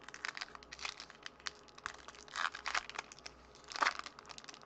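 Crinkly wrapper of a 2013 Topps Update baseball card pack being torn open and pulled apart by hand: irregular crackling and rustling, with louder crinkles about two and a half seconds in and again near the end.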